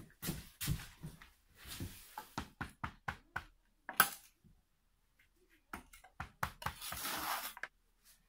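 Wooden mallet tapping bricks down into the mortar bed, a run of quick dull knocks over the first few seconds and a few more later, bedding the bricks level under a spirit level. About a second of scraping comes near the end.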